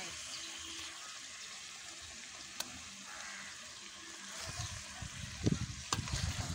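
Beef pieces frying in a little oil in a metal pot, a steady sizzle; from about four and a half seconds in a wooden spoon stirs them, the meat scraping and knocking against the pot.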